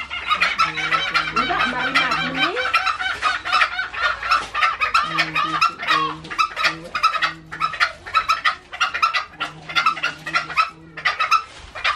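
Fowl clucking in runs of short, low notes, in three bouts, over a dense, continuous chatter of high chirps.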